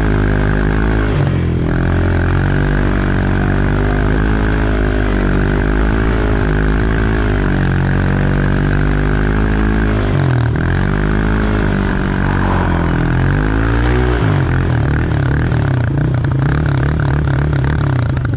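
Snowblower engine running steadily, its pitch dipping and recovering twice in the second half as the load changes.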